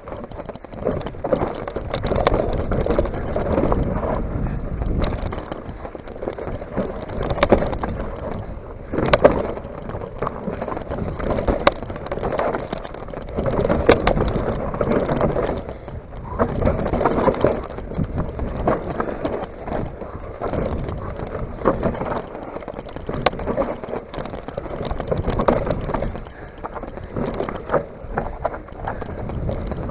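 Mountain bike descending a rough dirt downhill trail: tyres crunching over dirt and stones, the bike rattling with many sharp knocks over bumps, and a rumble of wind on the microphone that surges and fades.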